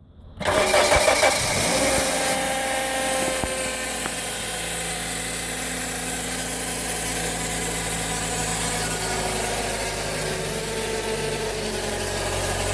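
Suzuki Ignis's M13A four-cylinder engine starting from cold about half a second in and settling into a steady idle, with a buzz over it from the automatic transmission. The buzz comes on a cold engine and is a sign of a worn transmission filter and fluid.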